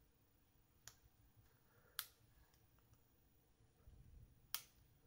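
Near silence with three faint, sharp clicks spread over the few seconds as a plastic Fluke TL175 test probe is handled and turned in the fingers.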